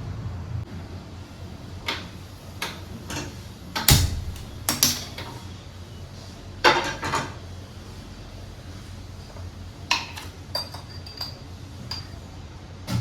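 Kitchenware being handled: pots, pans and utensils knocking and clinking at irregular moments, the loudest knock about four seconds in. Several clinks near the end ring briefly.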